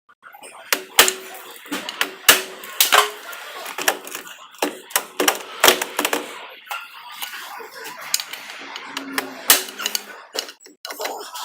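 Irregular sharp metallic clicks and clanks of hand tools loosening and removing the bolts at the rear end of a Jeep Wrangler JK's front driveshaft, some knocks leaving a short ring.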